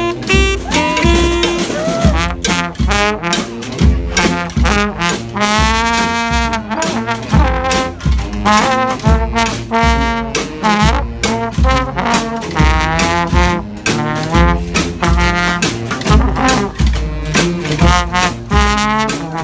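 Community street band playing live: brass horns led by trombone sound melody and chords over a steady drum beat.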